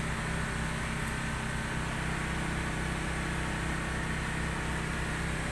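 A boat's engine running steadily at an even pitch, with a constant hiss of wind and sea over it.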